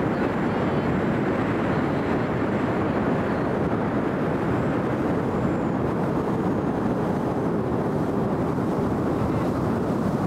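Steady rush of a 4Winns motorboat underway, its engine drone mixed with wind and water noise on the microphone.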